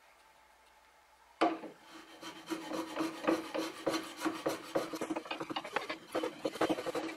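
A finely set block plane shaving the wooden sole of a coffin smoother, truing up uneven high spots in the sole. It starts sharply about a second and a half in, then runs as a quick series of short scraping strokes, a few a second.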